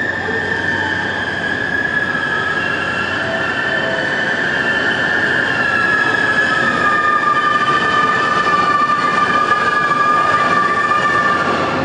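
EF510 electric locomotive hauling the Cassiopeia sleeper train, starting away from the station at low speed and slowly coming closer. A steady high whine runs over the train's rumble, and about halfway in a second tone joins it and slides gradually lower.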